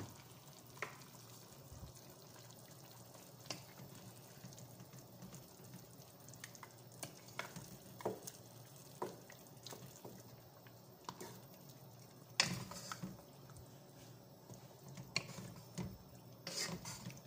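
Wooden spatula stirring chicken pieces in a sauce in a nonstick pot, with scattered scrapes and knocks against the pot, the loudest about twelve seconds in and near the end, over a faint steady sizzle of frying.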